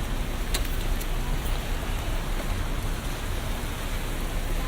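Steady rain falling on city street surfaces, with a sharp tap about half a second in.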